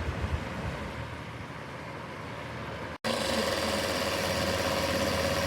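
Electric fan heater running: a steady whirring rush with some low uneven thumping, then about three seconds in a sudden cut to a louder, steadier whirr with a clear humming tone.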